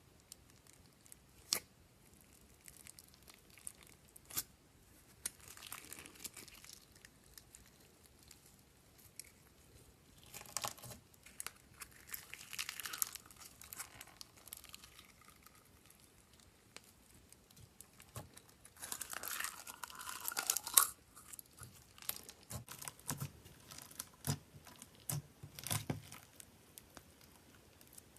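Slime being handled and stretched: sticky crackling and rustling with scattered sharp pops and clicks, in three longer spells, the loudest about twenty seconds in.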